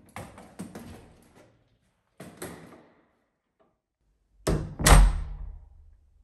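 A few light knocks and rattles, then a wooden front door swinging shut: two thuds about half a second apart, the second the loudest, as the door hits the frame and latches.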